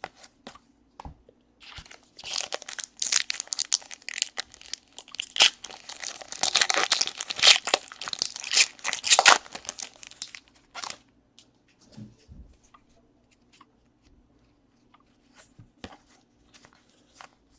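Foil wrapper of a baseball card pack being torn open and crinkled for several seconds, then a few faint clicks and taps.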